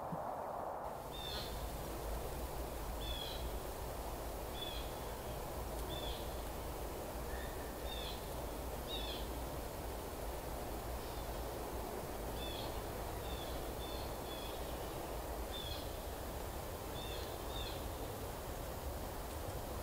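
A bird gives short, high chirps, repeated irregularly about once a second from about a second in, over a steady low rumble.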